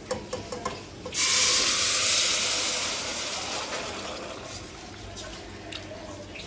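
A few light clicks, then hot water poured into a pan of freshly roasted semolina hits the hot pan with a sudden loud hiss of steam that slowly dies away over several seconds.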